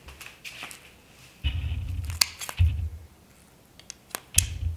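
A tactical nylon dog collar's buckle being worked by hand: a few sharp clicks from the release lever, about two seconds in and again near the end, among dull thuds and rubbing from handling the stiff webbing.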